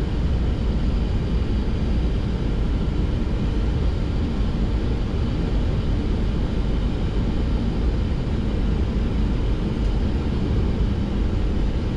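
Steady flight-deck noise of a Boeing 737-800 on short final approach: an even rush of air over the cockpit mixed with the engines at approach power.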